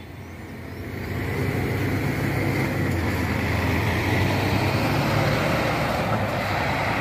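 Double-decker intercity coach driving slowly past close by, its diesel engine humming low under tyre and road noise; the sound swells over the first second or so and then holds steady.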